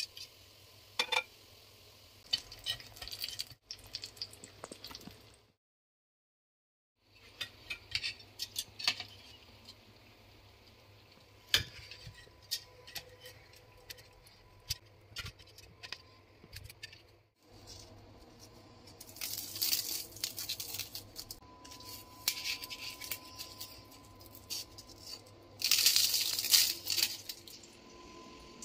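Kitchen sounds of spring rolls shallow-frying in a pan: scattered clicks and clinks of utensils against the pan and plate, with two short, louder spells of hissing noise in the second half. There is a moment of dead silence about six seconds in.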